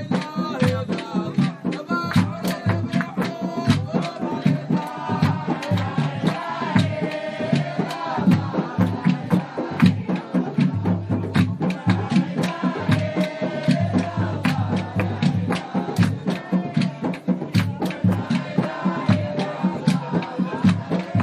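Music: a group of voices singing or chanting over fast, steady hand percussion and a low bass line.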